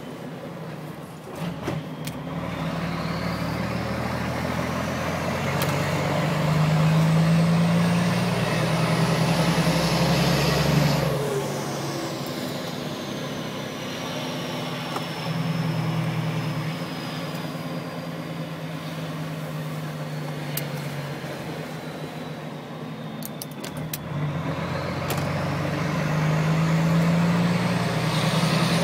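Truck engine revving with its turbocharger whistling. A high, thin whine climbs steadily as the engine revs up and gets louder, then sinks slowly over more than ten seconds as the revs fall, and climbs again near the end as the engine is revved once more.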